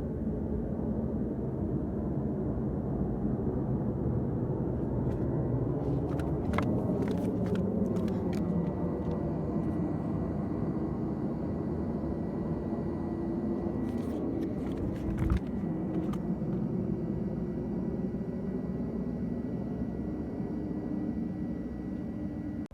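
Aircraft engines rumbling steadily, with a few sharp clicks and a knock about two-thirds of the way through.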